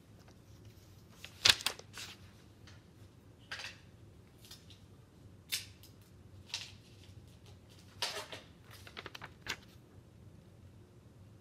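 Handling noise from the camera being touched and adjusted close up: scattered clicks, knocks and rustles over a faint room hum, with one sharper knock about a second and a half in and a quick run of small clicks near the end.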